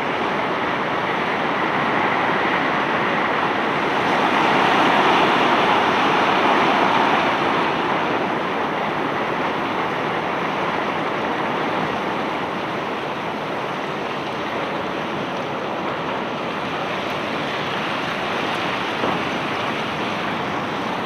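A steady rushing noise that swells for a few seconds around five seconds in, with no separate knocks or clatter.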